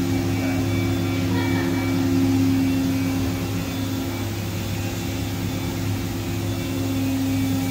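A Roku-Roku Sanyo HC-658 vertical machining center running under power with no cutting: a steady machine hum carrying a few held low tones.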